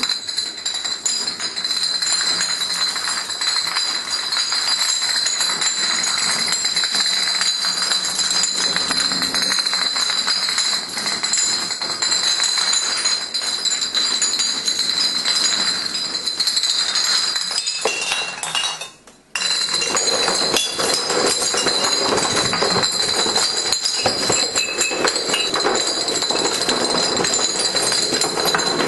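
A long chain of glass beer bottles toppling like dominoes, one into the next, making a continuous rapid clatter of glass clinking against glass and the floor. It drops out briefly about two-thirds of the way through.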